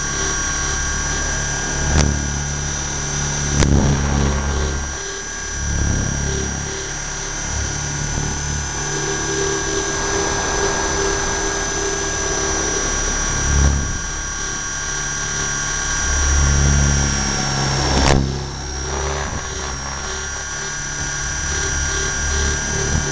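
Align T-Rex 600 radio-controlled helicopter in flight, heard from a camera mounted on it: a steady high whine from the motor and gears over a low rumble that swells and fades as it manoeuvres, with a few sharp clicks.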